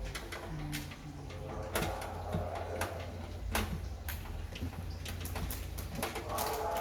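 Scattered clicks and knocks of hardware being handled, over a steady low hum.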